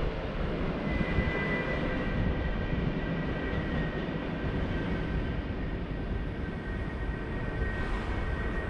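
Railway station yard ambience: a steady low rumble, joined about a second in by a thin, steady high whine.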